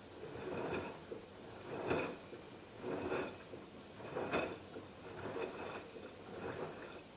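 LG F10B8QD1 direct-drive front-loading washing machine in its wash phase: wet laundry swishing and splashing in the turning drum, a rhythmic swish about once a second.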